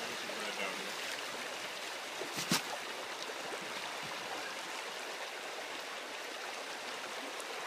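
A small river running over a stony bed: a steady rush of flowing water, broken once about a third of the way in by a short, sharp knock.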